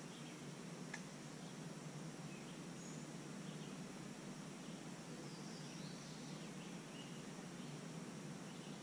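Faint outdoor swamp ambience: scattered short bird chirps over a steady hiss, with a single faint click about a second in.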